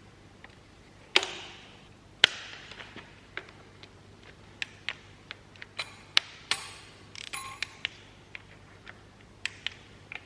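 Metal hand tools clicking and clinking against metal parts of the engine's timing chain drive while its bolts are tightened: scattered sharp clicks, two loud clanks about a second and two seconds in, and a short run of quick clicks about seven seconds in.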